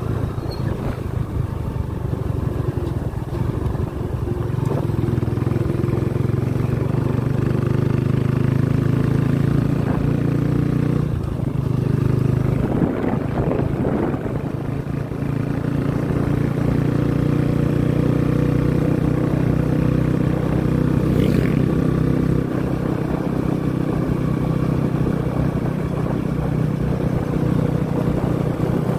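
Motorcycle engine running steadily at cruising speed, with wind and road noise from the ride.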